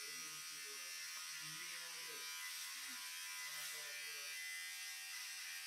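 A small handheld electric motor buzzing steadily, with low voices talking underneath.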